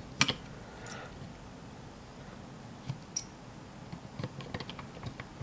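Scattered light clicks and taps of a small screwdriver and fingers against a circuit board and its tiny screws, a few sharp ticks spread out over a quiet background.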